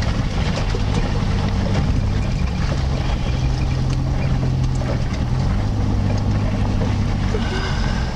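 Off-road vehicle's engine running under way on a dirt track, a steady low hum whose pitch shifts down and back up a couple of times as the throttle changes.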